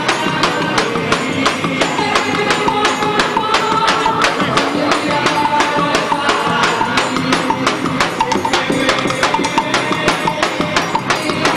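Festa junina music with a fast, steady percussion beat, about four strokes a second, under a melody line.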